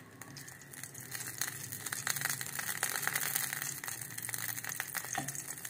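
Desi ghee sizzling and crackling softly as it melts in a hot frying pan, moved around with a plastic spatula.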